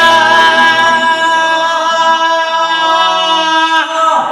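A man singing one long held note into a microphone, unaccompanied, the pitch bending slightly before it breaks off near the end; a new sung phrase begins just after.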